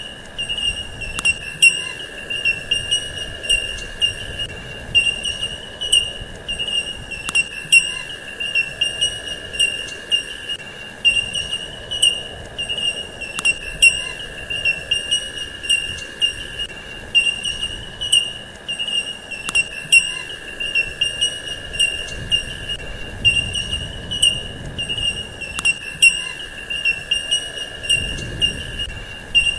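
Steady chorus of crickets or similar insects: an unbroken high trill with a lower steady hum under it and short chirps and ticks on top. The pattern repeats about every six seconds, as a looped recording does.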